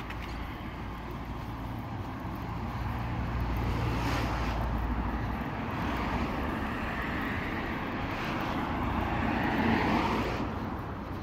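An engine passing by, growing louder to its peak near the end and then fading, over a low steady rumble.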